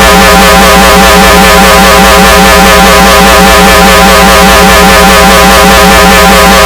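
A long, very loud, distorted scream held on one pitch that wavers rapidly and evenly.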